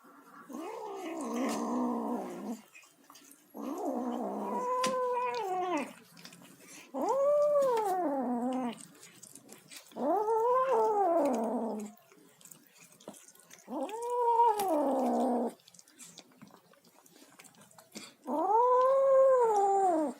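A kitten making long growling yowls while eating: six calls, each about two seconds long and rising then falling in pitch, with short pauses between them. The first two are rougher and more growly, and the later ones are clearer, drawn-out yowls.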